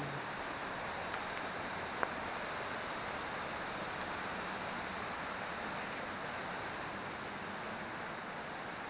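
Steady rushing of a mountain river's water, with two faint clicks about one and two seconds in.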